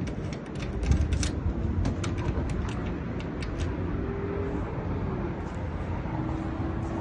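Keys clicking and clinking as they are handled, in quick irregular taps over the first few seconds, over a steady low hum.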